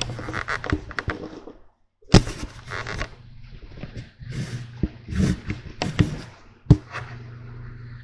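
Rustling and scraping noises with several sharp knocks, over a steady low hum.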